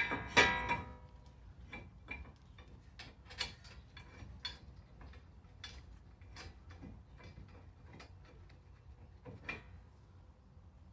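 Metal hand tools and bolts being handled: a loud metallic clink that rings briefly about half a second in, then scattered light clicks and ticks, while the brake caliper bracket bolts are fitted.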